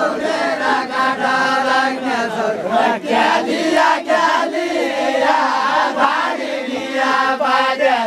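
A group of men singing a Deuda folk song together, several voices chanting a verse in unison.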